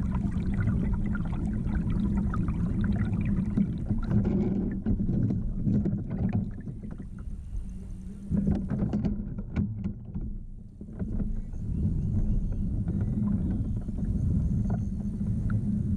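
Water lapping and sloshing against a fishing kayak's hull, with a few small knocks and clicks; the wash dips briefly about ten seconds in.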